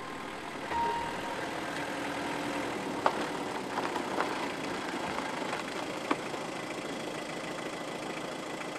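Car engine running steadily as the car drives up and pulls to a stop, with a few sharp clicks about 3, 4 and 6 seconds in.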